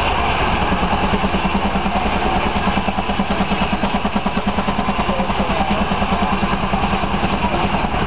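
40 hp Case steam traction engine running on the belt to a sawmill, its exhaust chuffing from the stack in a quick, even beat of several puffs a second.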